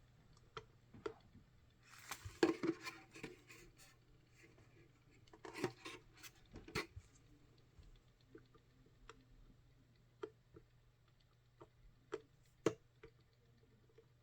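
Scattered sharp plastic clicks and light knocks from a radio-controlled wall clock being handled and its buttons pressed: a cluster about two to three seconds in, another around six seconds, then single clicks at uneven gaps of about a second. A faint steady hum lies underneath.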